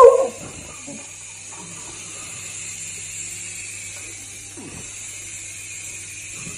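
A beagle's loud howl cuts off just after the start, then the motor and rotor of a toy remote-control helicopter whir steadily, with a brief faint whine from the dog about five seconds in.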